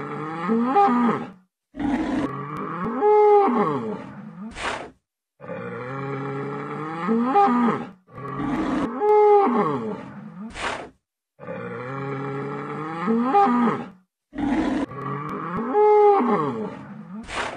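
A bull bellowing: a long low moo, then a second call that rises and falls in pitch, then a brief noisy burst. The same sequence repeats about every six and a half seconds, close to three times over.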